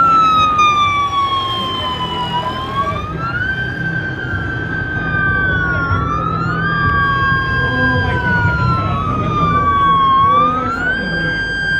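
Two fire-service emergency vehicle sirens wailing out of step with each other. Each rises quickly, holds, then falls slowly over a couple of seconds, over the low rumble of vehicle engines.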